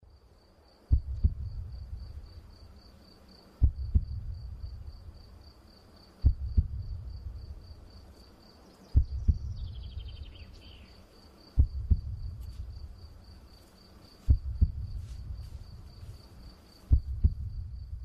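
Slow heartbeat-like sound of deep double thumps, a pair about every two and a half seconds, each fading into a low rumble. Under it a high, fast-pulsing cricket-like chirp keeps on throughout, with a brief falling high call about halfway.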